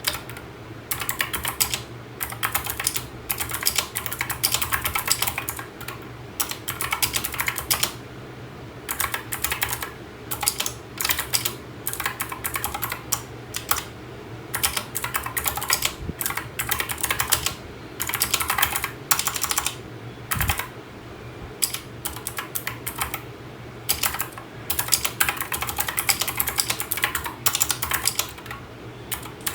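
Typing on a mechanical keyboard fitted with Gateron switches: fast runs of sharp key clicks, each run lasting a second or so, broken by short pauses.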